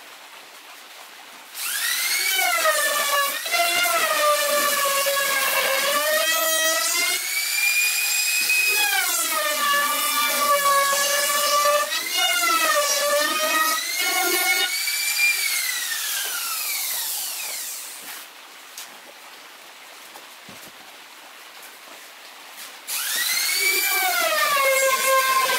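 Handheld trim router whining as it cuts along the plywood edges of a subwoofer box, its pitch dipping and recovering as the bit takes load. It starts up about two seconds in, winds down after about fifteen seconds, and after a lull spins up again near the end.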